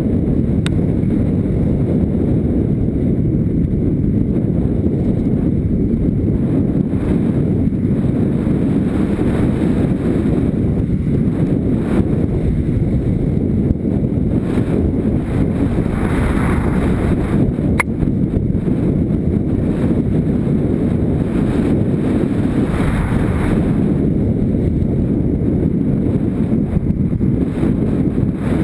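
Motorcycle riding on a dirt track: steady low wind rumble on the camera microphone over the engine running. A single sharp click about eighteen seconds in.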